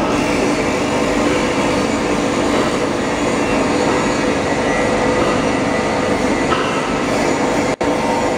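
Foam cutting machine running steadily as it slices memory foam into a 0.5 mm sheet: a loud, even mechanical running noise with a steady hum. The sound drops out for an instant near the end.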